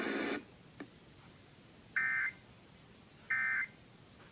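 Emergency Alert System end-of-message (EOM) digital data bursts, the short buzzy screech that closes an EAS message. Two identical bursts about a third of a second long come about a second and a third apart, after a louder sound cuts off just after the start.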